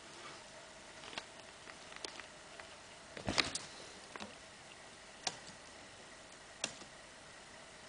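Scattered soft taps and clicks from a Bengal kitten stepping on and pawing a white MacBook's plastic keyboard, with a heavier thump about three seconds in.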